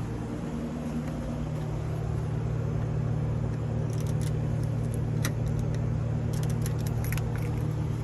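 Car engine running steadily with a low hum. A cluster of light, sharp clicks and jingles comes about halfway through.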